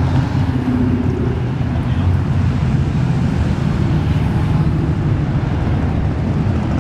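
Cars and an old pickup truck driving past with a steady low engine and exhaust rumble, and wind noise on the microphone.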